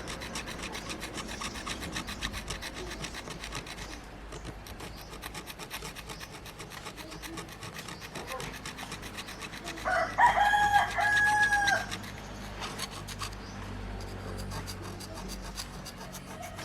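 Rapid, even scraping of hand work on a part, many short strokes a second. About ten seconds in, a rooster crows loudly.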